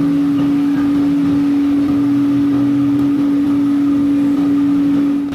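Factory machinery running with a loud, steady hum.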